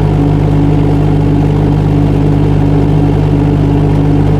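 Kubota D902 three-cylinder diesel engine of a 2-ton mini excavator running at a steady speed.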